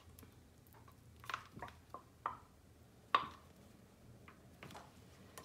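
Faint, scattered clicks and soft squishes from a plastic tub of wet dog-food pâté being squeezed and tapped to turn the food out in one piece. The sharpest click comes about three seconds in.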